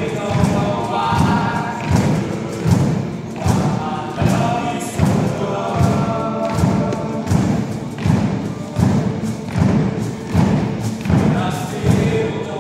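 Men's a cappella choir singing in parts over a steady thumping beat, about three thumps every two seconds.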